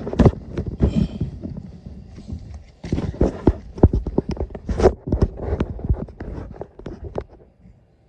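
Irregular knocks, taps and scrapes of a phone being handled and set down on asphalt, mixed with footsteps. They stop shortly before the end.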